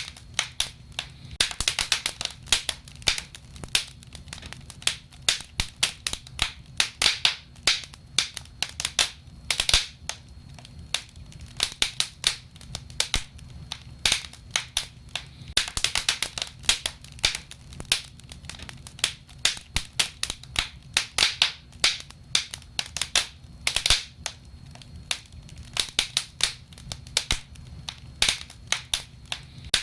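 Wood fire in a fireplace crackling and popping: irregular sharp snaps, several a second and some louder than others, over a low steady rumble of the burning logs.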